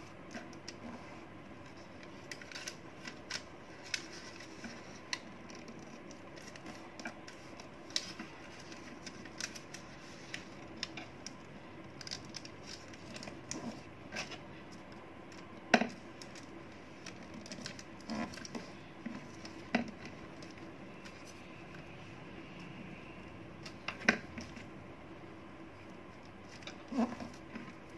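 Hands folding and creasing a small sheet of origami paper on a tabletop: scattered light paper rustles and taps, with a sharper tap about halfway through, over a faint steady hum.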